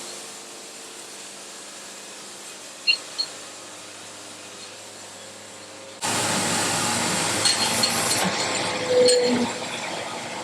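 Portable band sawmill running: a quieter steady hum with two short clicks, then about six seconds in a much louder steady noise starts suddenly and carries on with scattered metallic clinks.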